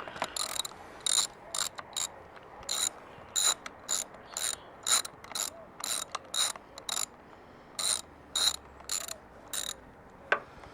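Socket ratchet clicking through short back-swings, about two strokes a second, as an 8mm socket works the lock nut loose under a motorcycle handlebar lever mount. A single sharp click comes near the end.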